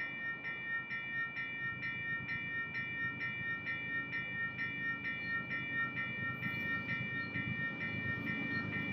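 A railroad bell ringing steadily, about two strokes a second, over the rumble of approaching Union Pacific diesel freight locomotives, which grows louder near the end.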